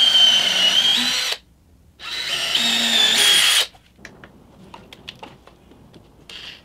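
Cordless drill boring a pilot hole into a thick 2x12 wooden plank. It runs in two bursts of about a second and a half, with a whine that steps up in pitch partway through each. After them come light clicks and taps as a screw is set into the hole.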